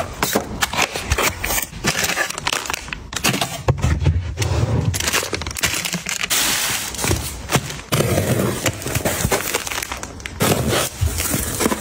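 Close-up handling of plastic-wrapped packs of wet wipes and tissues, crinkling and rustling in irregular bursts with many small clicks and knocks as they are unpacked and set down.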